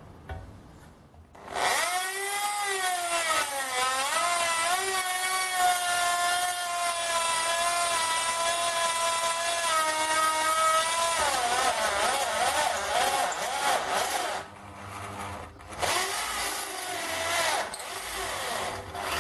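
Electric drill running a step drill bit through thin galvanized steel purlin, the bit squealing with a wavering high tone for about twelve seconds. It pauses briefly, then cuts again near the end. The drill's gearbox is one the owner says is dying.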